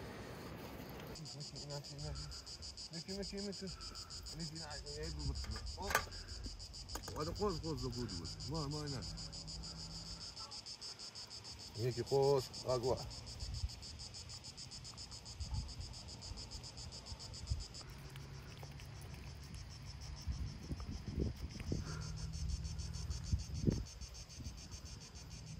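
Steady, high-pitched, finely pulsing insect chirring, strongest through the first two-thirds and fainter after. A few short low calls break in, the loudest about halfway through, along with a sharp click near the quarter mark.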